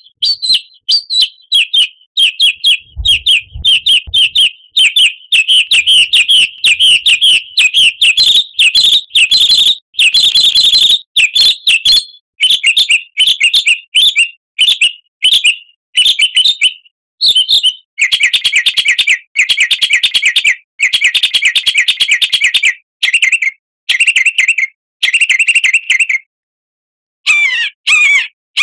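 A songbird singing hard ('gacor'), a fast, varied string of sharp chirps with no pause. From about two-thirds of the way through it switches to dense rapid trills, then breaks off briefly near the end.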